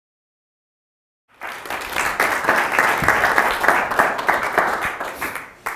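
Audience applauding. The clapping starts abruptly about a second in and dies away near the end.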